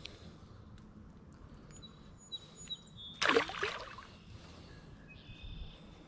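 Birds calling with thin, high whistled notes over faint outdoor background noise. About three seconds in comes one short, loud splash as a small bass is let go back into the water.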